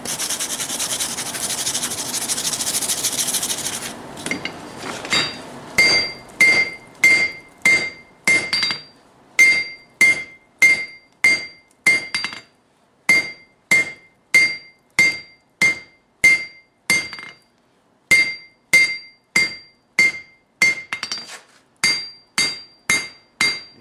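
Hand hammer striking a glowing forge-welded layered steel billet on an anvil, about two blows a second with short pauses, each blow ringing bright and clear: the billet being drawn out. A steady hiss fills the first few seconds before the blows begin.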